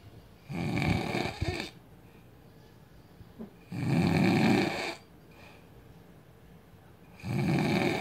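A sleeping man snoring loudly: three snores about three and a half seconds apart, each lasting a little over a second, with quiet breathing between them.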